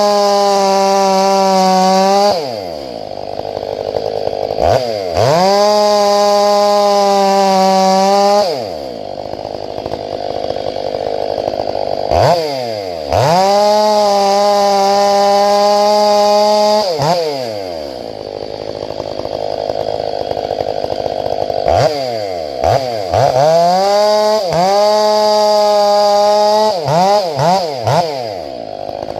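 Two-stroke chainsaw running at full throttle in long stretches of about three to four seconds, dropping back to a low idle in between, four times, with a few quick throttle blips near the end. The pattern is typical of bucking firewood rounds.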